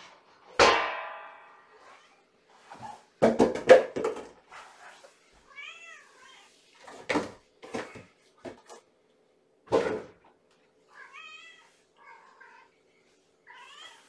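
A cat meowing several times, short calls rising and falling in pitch, among loud knocks and thuds. The first knock, about half a second in, rings on briefly; a cluster of the loudest knocks comes a few seconds later, and single ones follow. The cat is hungry at feeding time.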